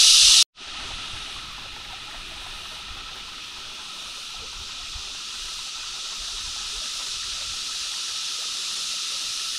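Steady, even hiss of outdoor forest ambience, growing slowly louder. It starts abruptly about half a second in.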